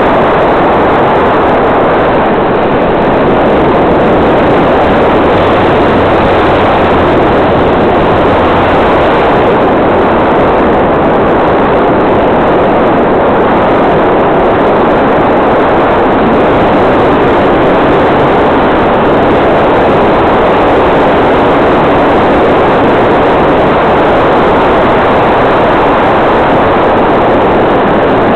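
Steady, loud rush of wind and propeller noise on the onboard camera of an RC model Piper L-4 Grasshopper cruising in flight, with no changes in throttle.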